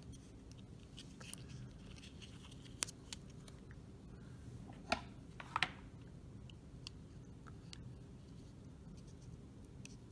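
Small scattered clicks and taps of a metal shield being handled and lined up on a circuit board, with two sharper clicks about five seconds in, over a faint steady hum.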